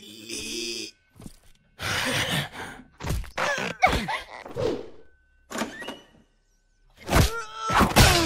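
Cartoon fight sound effects: a string of thuds and crashes of a body being struck and falling, mixed with grunts and pained cries, with the loudest crashes and a cry near the end.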